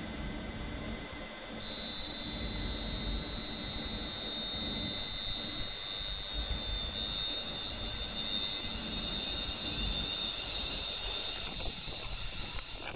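A Class 350 Desiro electric train standing at the platform, its electrical equipment giving a steady high-pitched whine that starts about two seconds in and fades near the end, over a low rumble.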